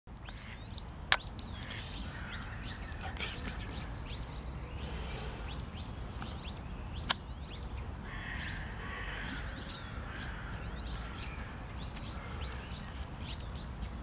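Birds chirping and calling: many short, high calls overlapping, over a steady low rumble. Two sharp clicks stand out, about a second in and about seven seconds in.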